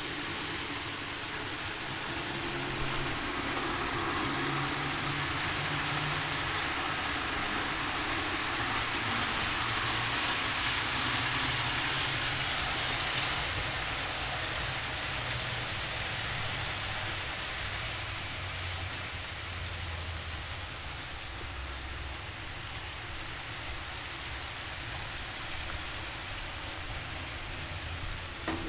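Model trains running on layout track: a steady whirring hiss from the motors and wheels on the rails over a low hum. The hiss swells for a few seconds about a third of the way in.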